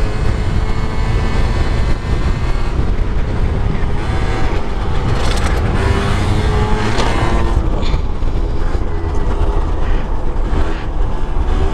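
Small Yamaha automatic scooter engine running hard at high revs, nearly at its rev limiter during a wheelie, with wind buffeting the microphone.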